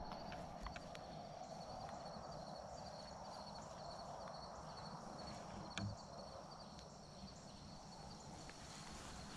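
Quiet outdoor evening ambience: insects chirping steadily in a fast, high-pitched pulse over a low hiss, with a few faint clicks.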